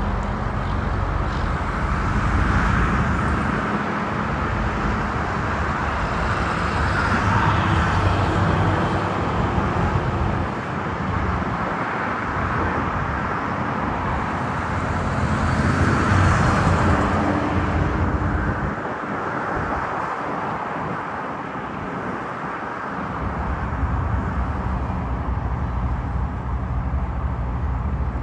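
Distant roar of an Airbus A380's four jet engines at low taxi power, a steady rush that swells and eases, with a faint whine about halfway through. Wind buffets the microphone in gusts that come and go.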